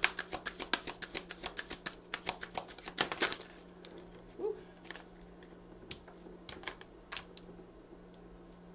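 Tarot cards being shuffled by hand: a fast run of crisp card clicks for about three and a half seconds, then a few scattered taps as cards are handled and laid down.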